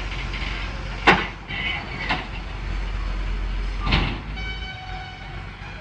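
Hydraulic excavator's diesel engine running, with three sharp metallic clanks about a second apart. The engine hum drops away near the end, and a faint steady high tone takes over.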